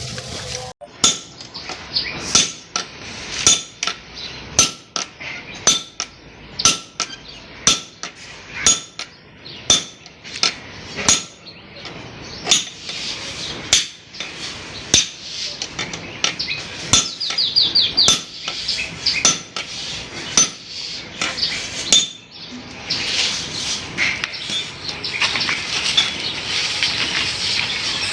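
Hammer blows on a steel chisel, a steady run of sharp metallic strikes about one and a half a second, stopping about 22 seconds in. A denser rough scraping noise follows.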